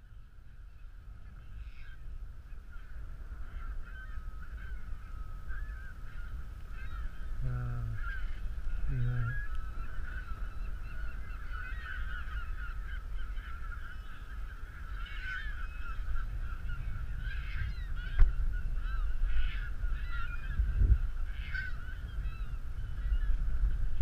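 A large flock of seabirds calling as it flies overhead, many overlapping harsh calls building louder. Two short, deep calls stand out about a third of the way in.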